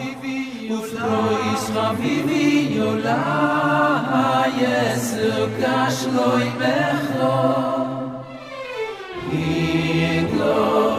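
Vocal music: singing voices carrying a melody with held notes. It eases off briefly about eight seconds in, then comes back in full.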